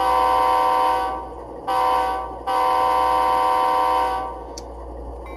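Recorded diesel locomotive horn played through the onboard sound decoder speaker of an HO scale Athearn Genesis GE C44-9W model: a chord of several tones sounded as a blast of about a second, a short blast, then a longer blast, completing a long-long-short-long grade-crossing signal.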